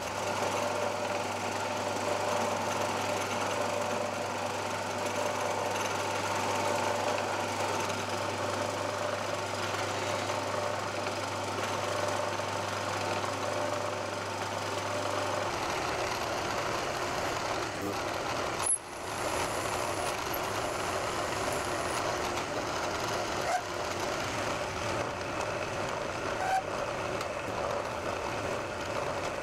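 Milling machine spindle running steadily while a drill bores a cross hole through a small machined nut clamped horizontally in a collet block. The sound cuts out briefly about two-thirds of the way in.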